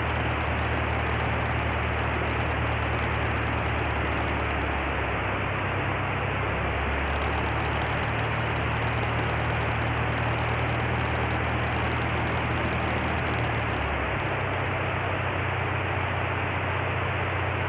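Cessna 152's four-cylinder Lycoming engine at low power while the plane taxis slowly, heard inside the cabin as a steady loud hiss over a low engine hum. The hum shifts pitch slightly a couple of times as the throttle is eased.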